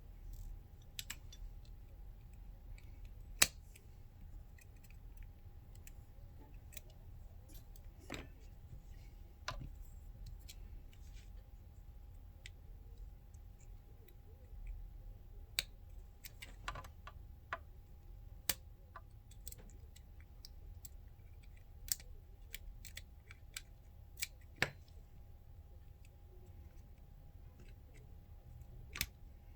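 Scattered small clicks and taps of tools and parts during work on an iPhone, about a dozen over the stretch, the sharpest about three and a half seconds in, with a faint steady tone underneath.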